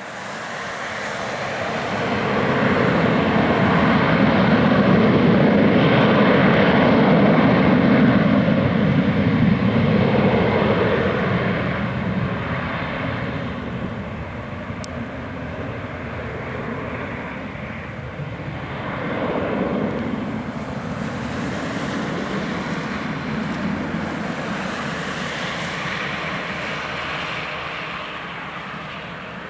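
Boeing 737-800's twin CFM56-7B turbofan engines at takeoff thrust as the jet rolls down the runway. The engine noise builds over the first few seconds and is loudest for several seconds. It then fades as the aircraft moves away, with a brief swell about two-thirds of the way through.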